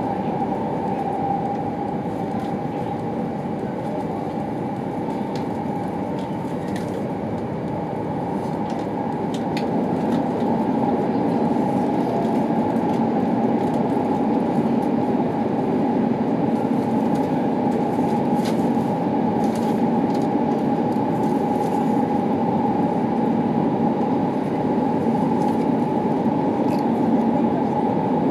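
Running noise of an E2 series Shinkansen heard from inside the car in a tunnel: a steady rumble with a held tone on top and a few faint clicks. It grows louder about ten seconds in.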